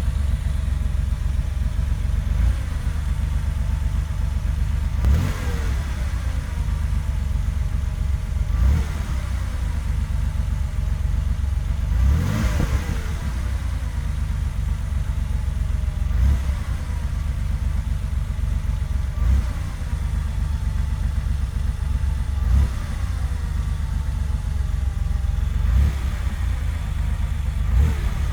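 Porsche 930 3.3-litre air-cooled turbocharged flat-six idling, blipped briefly about every three to four seconds, each time rising and falling back to idle. The engine is making a weird sound, which the owner is showing.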